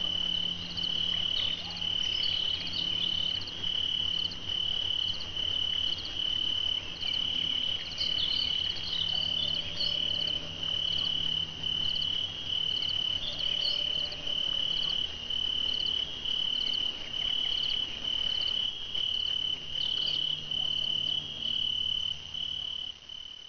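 Night ambience of a cricket chirping in an even rhythm, one high trill a little more than once a second, with fainter scattered chirps around it. It fades out near the end.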